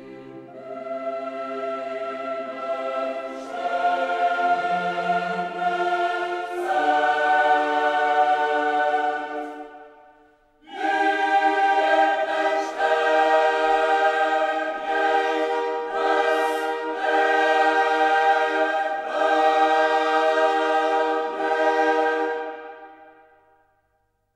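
Background music: a choir singing long held chords in two phrases, with a short break about ten seconds in, fading out near the end.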